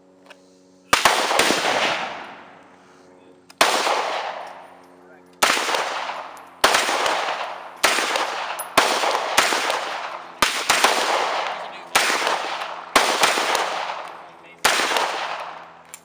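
Sig Sauer MPX 9mm pistol fired semi-automatically in a string of well over a dozen single shots, spaced irregularly from about half a second to two seconds apart, each shot followed by a long echo. The first shot comes about a second in.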